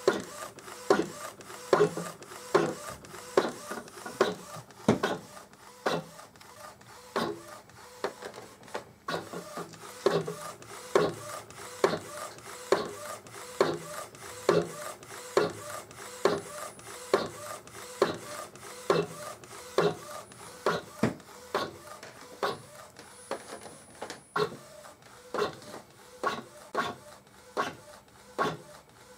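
Epson Stylus Photo R1900 inkjet printer, converted for direct-to-garment printing, printing a t-shirt: the print head carriage shuttles back and forth, whirring on each pass with a sharp knock every half second or so.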